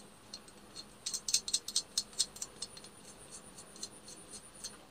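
Light metallic clicks and small rattles of a nut being turned by hand onto a bolt through a steel strip on an angle-grinder blade guard: a quick run of clicks about a second in, thinning out toward the end.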